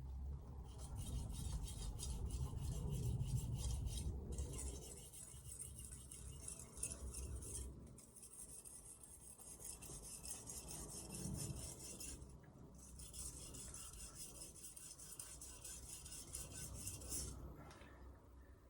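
Carbon-steel knife blade stroked rapidly back and forth on a 1000-grit splash-and-go whetstone, a fast scraping in runs of about four seconds with short pauses between them.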